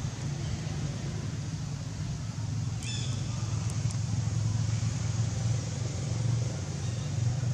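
Steady low motor rumble, with one brief high-pitched chirp about three seconds in.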